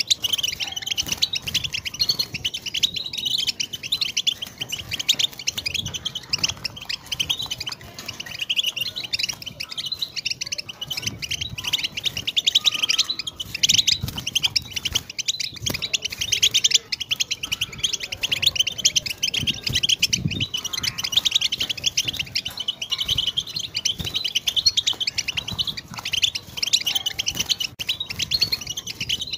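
European goldfinch singing: a long, unbroken run of rapid, high twittering and chirping phrases.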